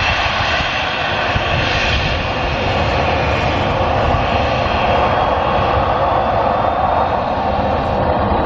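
Airliner engines running, a loud, steady rushing noise with a faint high whine through it.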